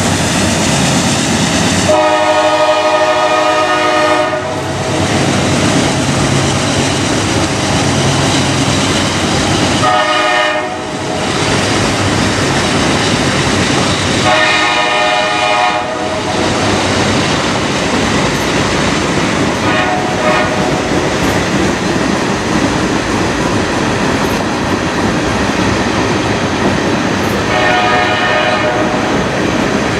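Diesel freight locomotive sounding its multi-note air horn five times, a long blast first and shorter ones after, over the steady rumble and clickety-clack of a CSX freight train rolling past.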